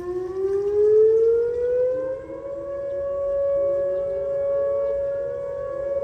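Outdoor tornado warning siren starting up suddenly: its pitch rises for about two seconds, then it holds a steady wail that swells and fades a little, with fainter rising tones beneath it.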